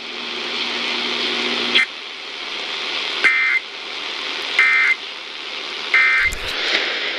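Weather-radio static, then three short, shrill data bursts about a second and a quarter apart: the Emergency Alert System End-of-Message (SAME) tones closing a NOAA Weather Radio tornado watch alert. A steady hum sits under the static for the first two seconds, and a low thump comes near the end.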